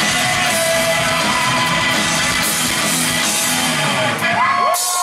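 Live rock band with electric guitars, bass and drums playing loudly. About four seconds in, the band stops and the audience breaks into whoops and cheers.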